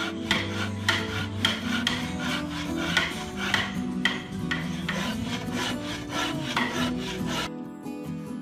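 Rhythmic strokes of a hand tool scraping or rubbing across wood, about two a second, over guitar music. The strokes stop shortly before the end.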